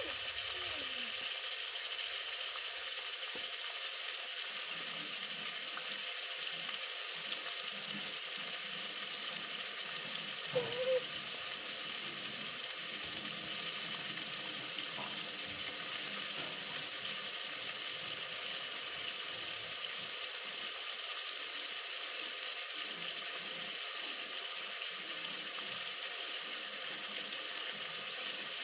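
Steady hissing sizzle of a pot cooking over a wood fire. A single short chirp comes about eleven seconds in.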